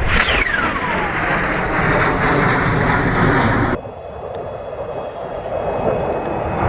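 JAS 39 Gripen fighter jet engine: loud rushing jet noise with a high whine that falls steeply in pitch over the first second or so. About four seconds in the sound cuts abruptly to a quieter engine rush carrying a steady high-pitched whine.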